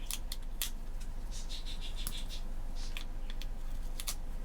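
Small sharp clicks and a brief scratchy rustle of paper and sticker handling on a planner page, over a steady low hum.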